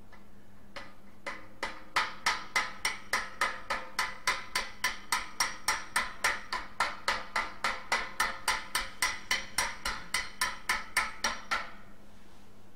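Hammer blows panel-beating dents out of a brass radiator shell: a steady run of about three strikes a second, each with a short metallic ring. The blows start about a second in and stop about a second before the end.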